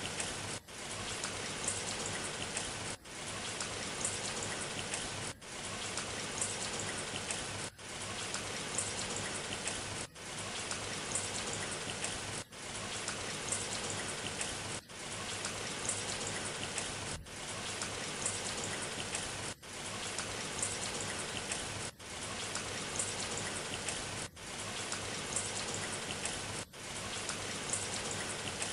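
Steady rain sound effect, a short recording looped so that it cuts out briefly about every two and a half seconds.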